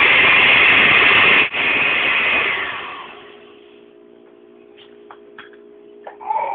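Countertop blender running on liquid crepe batter, with a brief break about a second and a half in, then switched off and winding down about three seconds in. A few faint clicks follow as the jar is handled.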